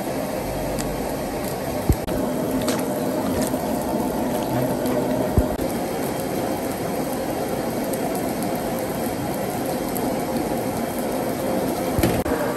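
Steady watery sound with two short sharp knocks, about two and five seconds in.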